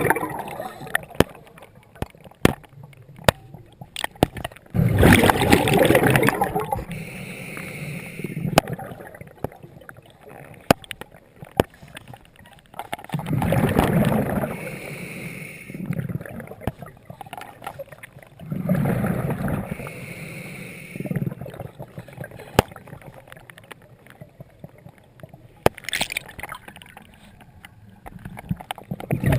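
Scuba diver breathing through a regulator underwater: exhaled bubbles rush and gurgle past in four swells, about one every seven seconds, each of the first three followed by a softer hiss, with scattered sharp clicks in between.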